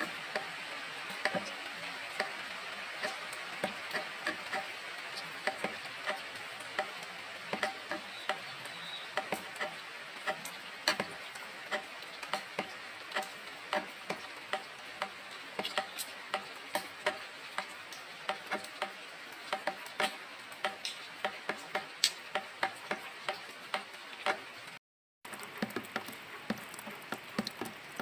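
Rain falling with a steady hiss, and irregular sharp drips striking close by. A faint, evenly repeating animal call runs underneath.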